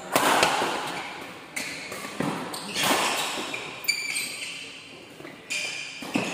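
Badminton rackets striking a shuttlecock in a fast doubles rally, a sharp hit about every second, each echoing in a large hall.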